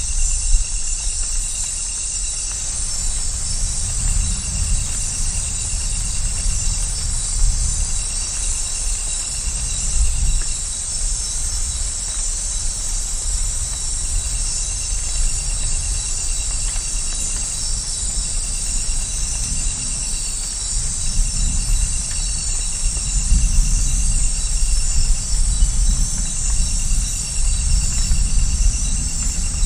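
Night-time Amazon rainforest ambience: a dense, steady high chorus of insects, with a short pulsed trill repeating several times, over a low rumble of distant thunder that swells in the last third.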